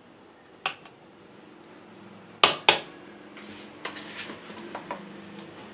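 A spoon knocking and clinking against a cooking pot while a layer of khoya is spread over rice: one knock, then two loud knocks close together about two and a half seconds in, then a few lighter clinks, over a faint steady hum.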